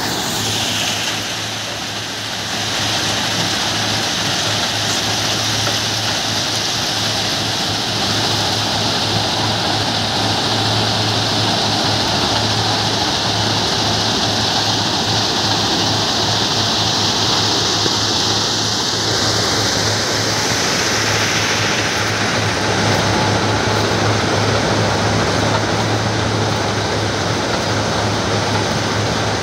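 RM80 ballast cleaning machine running: a steady low engine hum under a loud, continuous rushing noise. The rushing changes slightly about twenty seconds in.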